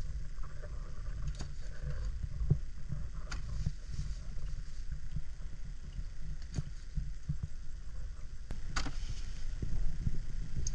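Knife cutting on a wooden board: a few sharp knocks and taps spread out, the loudest about three-quarters of the way in, over a low steady rumble.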